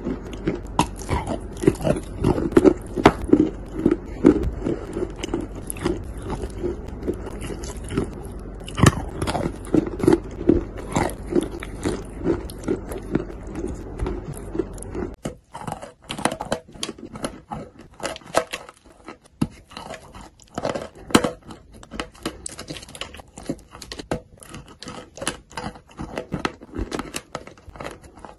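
Close-up biting, crunching and chewing of edible clay and chalk. In the first half the greyish-green clay is chewed over a low steady hum; after a cut about halfway through come crisper, separate crunches of a dry white chalk piece being bitten.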